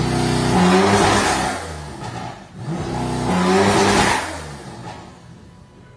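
BMW F80 M3's twin-turbo inline-six revved up twice, each rise in engine pitch carrying a loud intake and turbo whoosh through aftermarket intakes and turbo inlets, then dying away.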